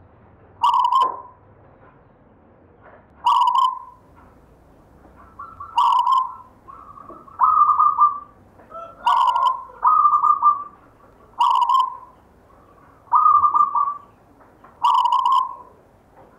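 Zebra dove (perkutut) singing its cooing song, a short phrase of quick cooing notes repeated about nine times, roughly every two seconds.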